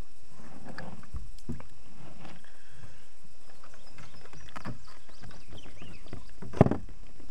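Scattered small knocks and clicks of gear being handled in a kayak, with one louder knock about six and a half seconds in.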